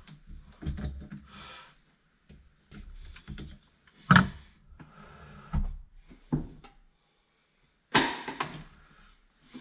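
Handling noises at a plastic wall terminal box: a tool clicking and scraping in the terminals and cable being drawn out. There are scattered clicks and knocks, the sharpest about four seconds in and another near the end.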